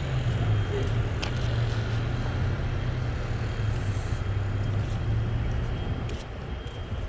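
A vehicle engine running with a steady low drone, over general background noise.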